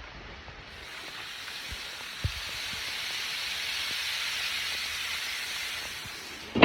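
Heavy rain falling, a steady hiss that swells in the middle and eases off near the end, with a few faint drip-like ticks.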